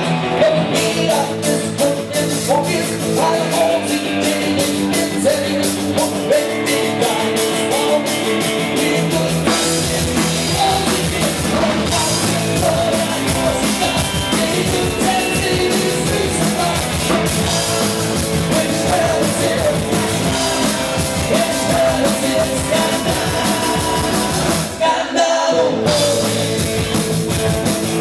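Live rock band playing: electric guitar, keyboard and drum kit, with the drums filling in about a third of the way through and a short break a few seconds before the end.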